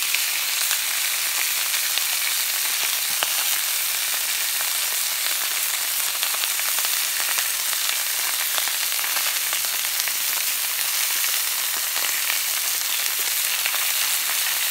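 Whole sea bass frying in a little oil on a hot plancha griddle: a steady sizzle with scattered small crackles.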